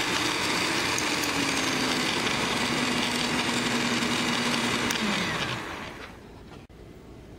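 Electric mixer motor running steadily as its beaters work a crumbly biscuit dough, then switched off about five seconds in, its hum falling in pitch as it winds down.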